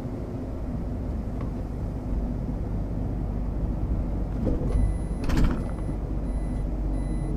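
City bus engine running under a steady rumble of road noise as the bus comes in to a stop. Just under five seconds in, a faint high beep starts repeating about every half second, and a moment later comes a short hiss of compressed air.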